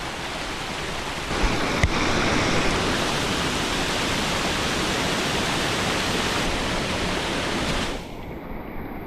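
Floodwater rushing in a torrent where rain runoff has turned a mountain trail into a stream: a loud, steady rush of water. It grows louder a little over a second in and drops back near the end.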